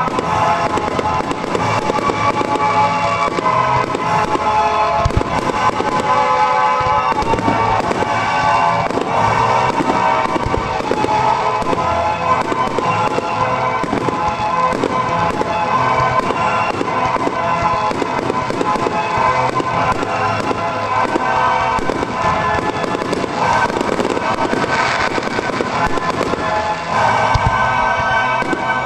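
Fireworks display: many shells and cakes firing and bursting in quick succession, with crackling, over music with steady held tones.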